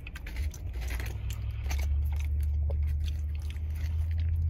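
Close-up chewing of a mouthful of poutine in barbecue sauce, with wet mouth clicks and smacks. A low steady hum underneath grows louder partway through.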